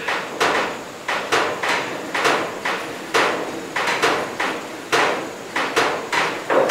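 Hand-cranked drill boring into a stag antler handle, the bit grinding through the antler in a regular beat of about two strokes a second. A bigger bit is opening out the pilot hole for the knife tang.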